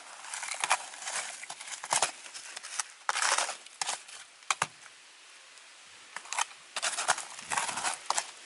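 A metal putty-knife scraper spreading and scraping a soil and rice-husk mix across a plastic seedling plug tray: irregular gritty scrapes with sharp clicks where the blade knocks the tray, easing off for a moment about halfway through.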